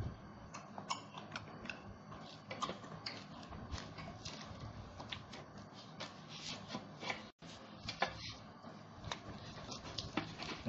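Close-miked eating: roast duck meat and crisp skin being torn apart by hand and chewed, a steady run of small irregular crackles, clicks and mouth smacks.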